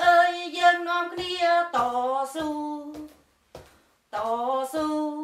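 A woman singing a slow song in Khmer, unaccompanied, in short phrases of held notes. There is a pause of about a second partway through before the voice resumes.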